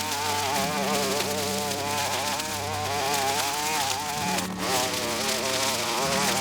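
Small engine buzzing steadily, its pitch wavering up and down continuously as the load changes, like a brush cutter working through grass.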